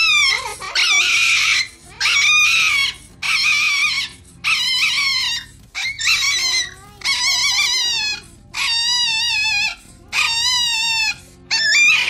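Small Chihuahua-type dog screaming in a run of about ten high-pitched, wavering cries, roughly one a second, each about a second long: the protest cries of a small dog being held and handled.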